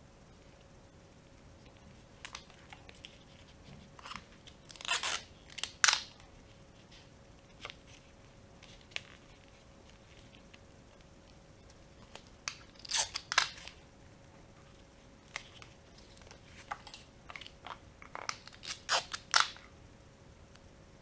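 Rolled paper tubes being handled and pressed together, giving three short bouts of crisp paper crinkling and rustling with scattered small taps in between.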